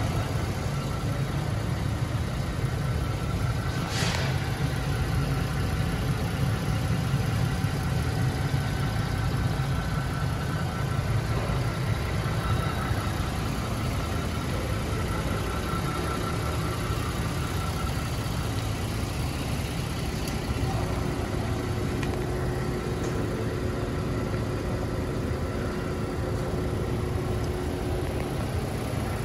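A 2020 Ford Transit AWD running on a lift, its engine and driveline turning steadily: a low, even drone with a faint steady whine on top.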